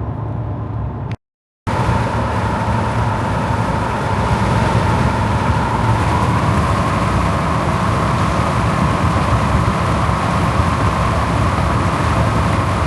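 Steady road and tyre noise inside a car driving at highway speed, loud and unbroken, with a faint steady whine in it. About a second in it cuts out to silence for half a second, then comes back louder.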